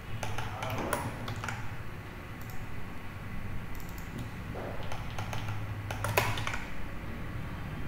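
Computer keyboard keystrokes in irregular short clusters, with a louder clack about six seconds in, over a faint steady low hum.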